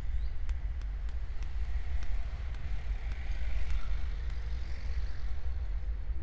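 A vehicle engine running steadily, heard as a low rumble, with faint irregular ticking over it.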